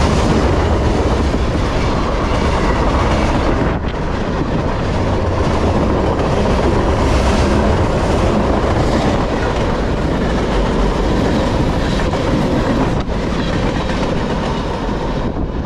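Freight cars of a CSX manifest train rolling past at track speed: a loud, steady rumble with the wheels clattering over the rails.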